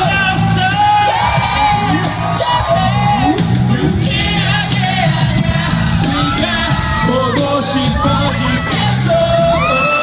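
Live pop music played loud through a hall's sound system, with a steady repeating bass line, while the crowd sings along and shouts.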